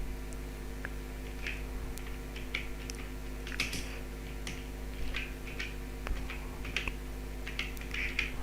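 Typing on a computer keyboard: irregular key taps with short pauses, over a steady low hum.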